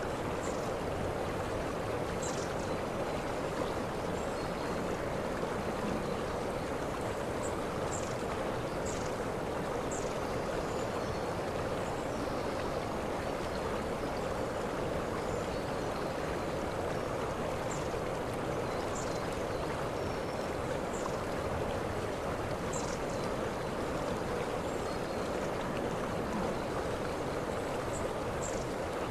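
Waterfall rushing steadily, with short high chirps every second or two.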